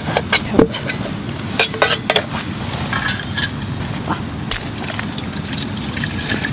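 Water pouring from a plastic bottle into a collapsible camp pot, a steady trickle of near-freezing water with bits of ice in it. A few clicks and knocks come in the first two seconds as the pot is handled.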